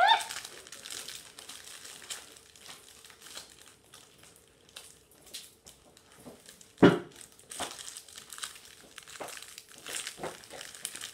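Plastic packet crinkling and rustling as it is handled and tugged at to get it open, with one sharp click about seven seconds in.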